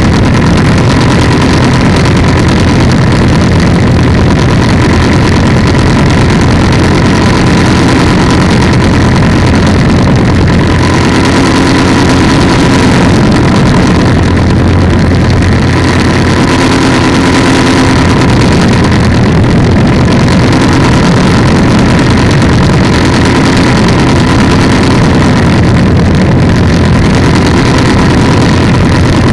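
Polini 190 single-cylinder two-stroke engine of an ultralight trike running steadily with its propeller, a loud, unbroken drone.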